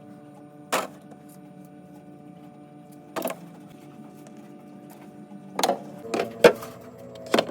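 A steady hum of several held tones, broken by sharp knocks and clicks: single ones about a second and three seconds in, then four close together near the end.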